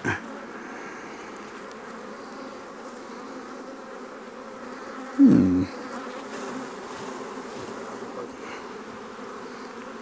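Honey bees from an opened, disturbed hive buzzing steadily in the air around the beekeeper as a frame is lifted out, with one brief louder sound falling in pitch about five seconds in.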